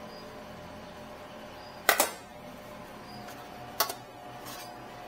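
Metal serving tongs clacking against stainless steel food pans: a quick double clack about two seconds in, another a little before four seconds, and a fainter one shortly after, over a faint steady hum.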